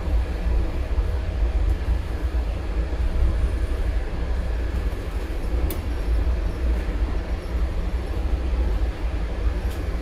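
Steady low rumble of a moving train in motion, with a brief sharp click a little past halfway.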